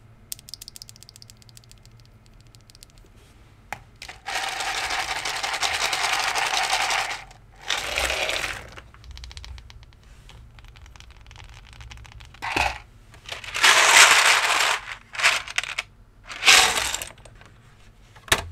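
Small plastic mechanical keyboard switch parts being handled while the switches are lubed: a quick run of small clicks, then several loud bursts of rustling and scraping noise with a few sharp clicks between them.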